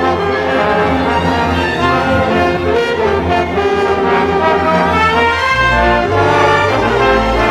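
Orchestral music with prominent brass, playing loudly throughout; deeper low notes come in about five and a half seconds in.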